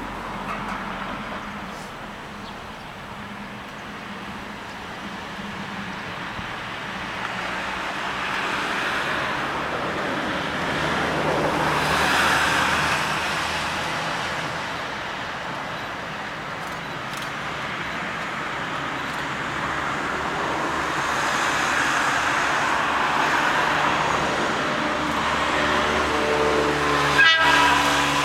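Tokaido Line 211 series electric train running, its noise swelling and easing twice. Near the end comes a short, loud horn blast.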